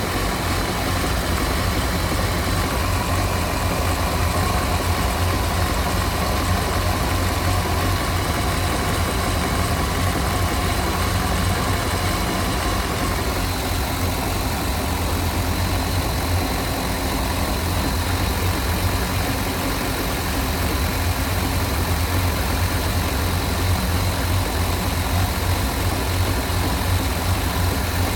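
Mastercraft ski boat's Indmar GM 350 small-block V8 inboard engine running steadily, with no change in speed.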